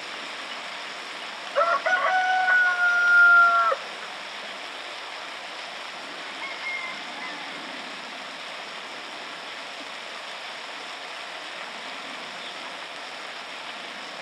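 A rooster crowing once, starting about a second and a half in and lasting about two seconds, a held call that ends abruptly. A steady hiss runs underneath.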